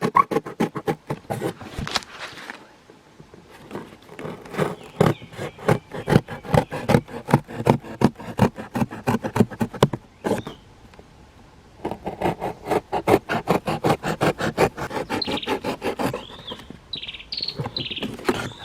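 A hand tool working wood with rapid, rhythmic scraping strokes, about five a second, pausing twice before going on.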